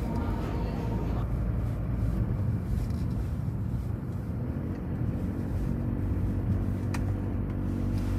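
Car cabin noise heard from inside a moving car: a steady low engine and road rumble. There is a brief click about seven seconds in.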